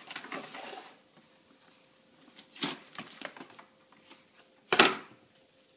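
Plastic cling wrap being pulled off its roll and handled, crinkling, with a few short crisp rustles; the loudest comes about five seconds in.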